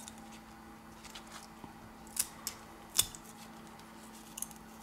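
A few small, sharp clicks of steel tweezers and the back camera's snap-on connector being worked loose from a Samsung Galaxy A40 motherboard, the sharpest about three seconds in, over a faint steady hum.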